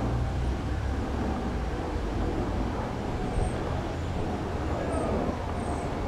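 Steady outdoor background rumble and hiss, with a low hum underneath and a few faint, short high chirps in the second half; the cats themselves are not heard.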